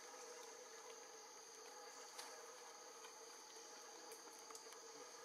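Faint, steady chorus of insects, crickets or cicadas, droning without a break, with a few small ticks.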